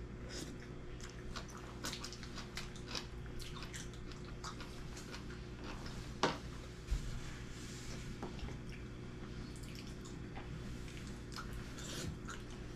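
Eating at a table: small scattered clicks and taps of a spoon and chopsticks against ceramic bowls, with chewing, over a steady low hum. Two louder knocks come a little past halfway.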